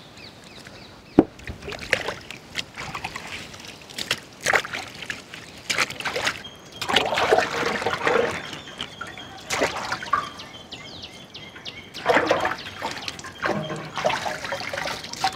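Water sloshing, splashing and dripping in a large aluminium pot as bunches of carrots with their leafy tops are swished around by hand and lifted out, in irregular splashes and trickles.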